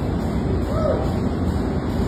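Steady, loud machinery din of a ship's engine room.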